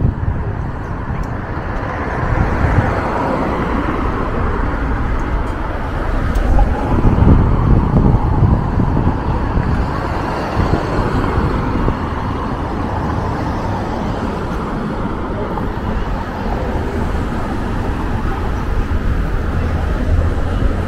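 Street traffic on a city avenue: cars passing in a steady wash of road noise, with one vehicle going by louder about seven seconds in.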